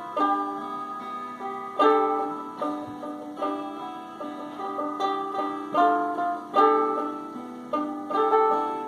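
Solo improvised instrumental music of plucked-sounding notes that start sharply and die away quickly, played in uneven clusters with no bass line.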